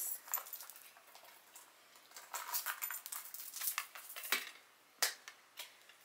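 Metal chain strap of a wallet-on-chain bag clinking and rattling lightly as it is unfolded from doubled to full length, in scattered bursts with a few sharper clicks near the end.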